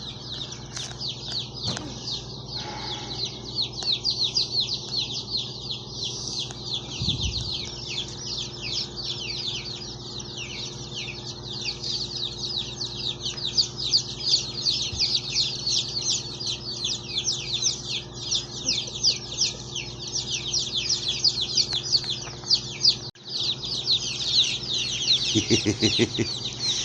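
A large crowd of day-old chicks peeping continuously, a dense chorus of high, falling cheeps.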